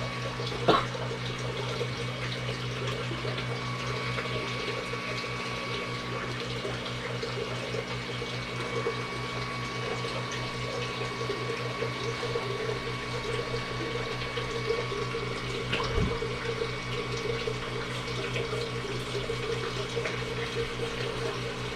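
Voxelab Aquila X2 3D printer's cooling fans running with a steady whirring hum. There is a sharp click about a second in and a low knock about 16 seconds in.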